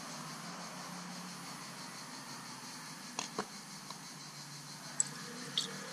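A handful of light plastic clicks and taps from a funnel and measuring jug being handled, two about three seconds in and two more near the end, over a steady background hiss.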